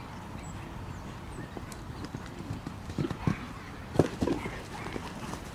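Horse's hoofbeats on a dirt arena as it canters a show-jumping course: a few heavy thuds around three seconds in, and the loudest one about four seconds in as the horse lands after clearing a fence, followed by more strides.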